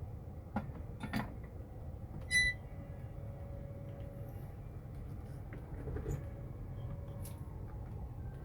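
Small clicks and taps of hand tools and wire being handled at an electronics repair bench, over a steady low hum. About two seconds in there is a brief, high ringing tone.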